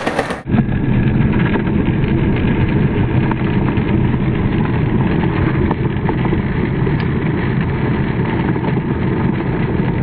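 A loud, steady mechanical rumble that starts abruptly about half a second in and runs on without a break.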